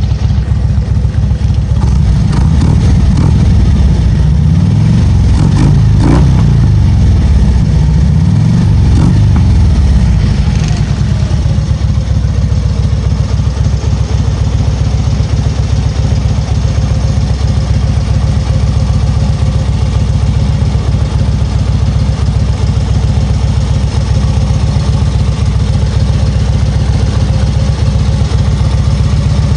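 Harley-Davidson Street Glide's 103-cubic-inch V-twin running through Cobra aftermarket mufflers: a few revs up and back down between about two and ten seconds in, then settling into a steady idle.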